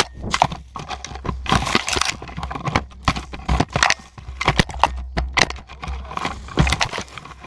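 Action camera tumbling down a steep dirt slope covered in dry leaves, with a rapid, irregular run of knocks and scrapes as it bounces and rolls. The knocking stops right at the end as it comes to rest.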